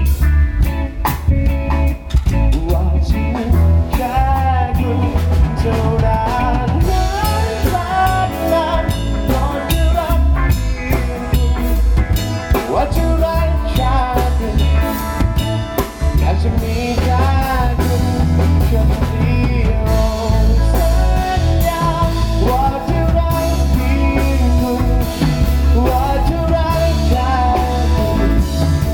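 Thai pop-rock song playing: drum kit and bass under a bending melodic lead line that comes in about four seconds in.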